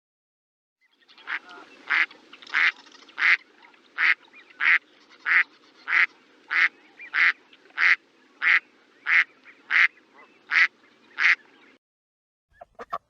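A duck quacking in a steady series of about sixteen short quacks, roughly three every two seconds, beginning about a second in and stopping near the end, over faint background noise.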